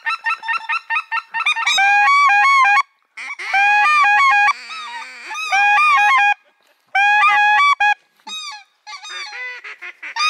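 Hand-held goose calls blown in runs of short, rapid honks, with a few brief pauses between runs, imitating geese to draw a flock in.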